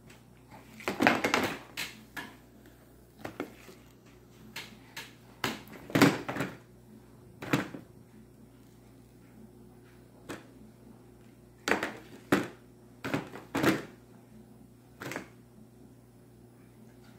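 A baby's hands slapping a plastic high-chair tray and knocking a bowl against it: about a dozen short, irregular knocks and thumps, some in quick pairs, with gaps of a second or more between them.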